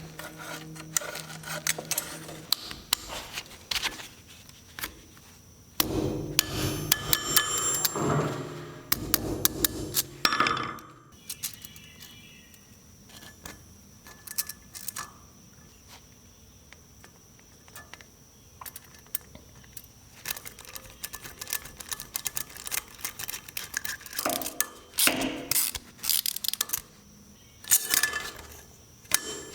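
Metal hand tools and parts clinking and knocking during garage work, with a busy, louder stretch of clatter about six to eleven seconds in and scattered clicks and knocks the rest of the time.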